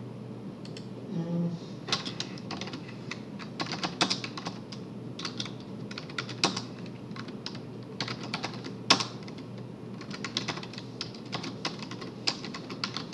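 Typing on a computer keyboard: irregular key clicks in quick runs with short pauses between them.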